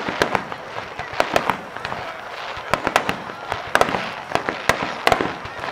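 Aerial firework shells bursting: a rapid, irregular series of sharp bangs and cracks, several in quick succession at a time.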